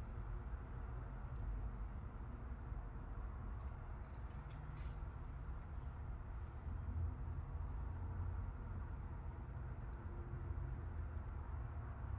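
Crickets chirping in a steady, continuous high trill, with a low rumble underneath.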